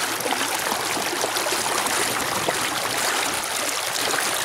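Steady rush and splash of water churned at the stern of an inflatable dinghy, driven by an electric trolling motor on its fifth speed setting.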